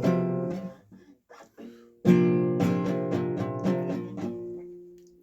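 Guitar chords strummed as a song's intro: one chord at the start that dies away, a few light short notes, then a chord about two seconds in left to ring and fade.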